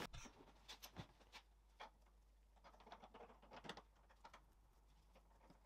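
Near silence, with a few faint scattered clicks.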